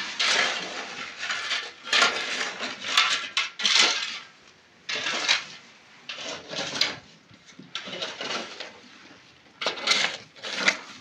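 Dishes and kitchenware clattering in short, irregular bursts as they are handled and moved on a shelf.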